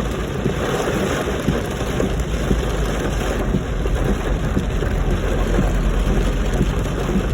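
Rain pattering densely on a car's body, heard from inside the car, over a steady low rumble.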